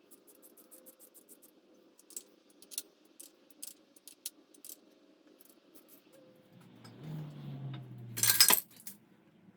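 Small metal parts and hand tools clicking and clinking irregularly, then a short, loud clatter near the end.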